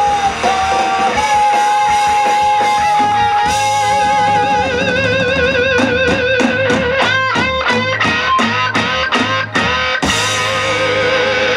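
Electric guitar solo played live over the band: a long held note, then notes with a wide vibrato, then a fast run of short notes, ending on another sustained note.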